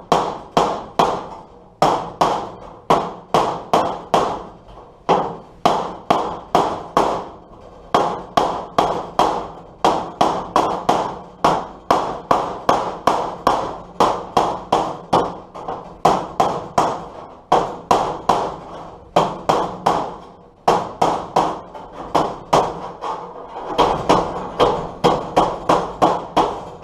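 Hammer striking the steel door skin of a 1939–47 Dodge truck, a run of sharp ringing taps about three a second with a few short pauses, beating the rounded, dented panel flat.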